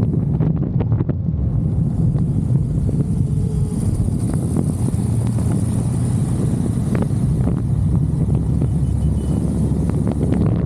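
Wind noise on the microphone of a moving motorcycle, with the KTM 390 Adventure's single-cylinder engine running steadily underneath.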